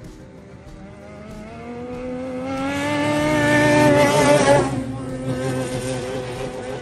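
Racing snowmobile passing by at speed. Its engine note rises in pitch and grows louder as it approaches, peaks about four seconds in, then drops in pitch as it goes past and fades away.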